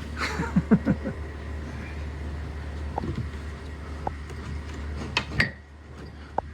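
Wooden window sash being fitted and slid into its frame: a quick clatter of wooden knocks about half a second in, then single knocks and bumps every second or so, the loudest near the end, over a steady low hum.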